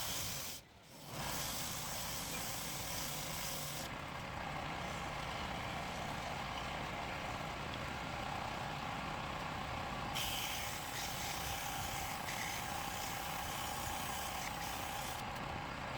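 Wood lathe running with a steady hum. A hissing cut, as a turning tool bites into the spinning wood, comes and goes: it stops about four seconds in and picks up again about ten seconds in.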